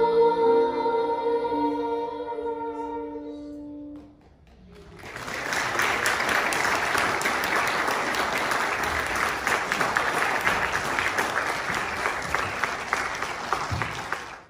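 Children's choir holding a final sung note that fades out about four seconds in, then, after a brief pause, an audience applauding steadily.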